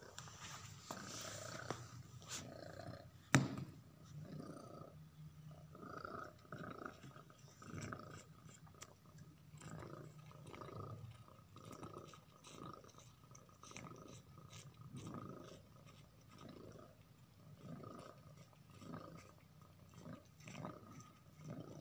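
Domestic cat purring close by, swelling and fading about once a second, with faint chewing and licking as it eats banana. One sharp click, the loudest sound, a few seconds in.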